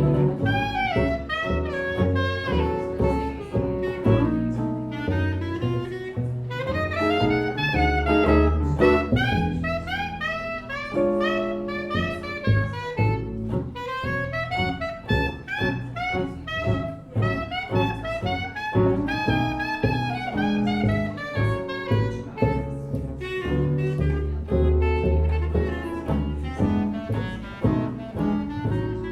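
Small jazz band playing live: a melody line with a bass line underneath.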